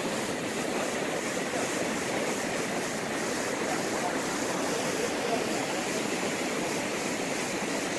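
Vernal Fall's white water rushing over its granite lip, heard up close from the brink: a steady, unbroken rush of falling water.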